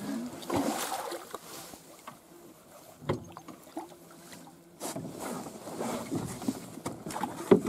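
Small rowboat on a lake: irregular water splashes and knocks against the boat, with a faint steady hum in the middle.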